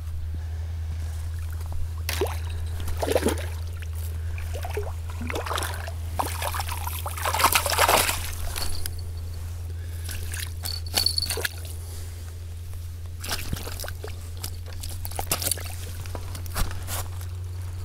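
A silver carp thrashing and splashing in shallow water at the bank as it is landed by hand, in scattered bursts that are loudest about eight seconds in. A steady low hum runs beneath.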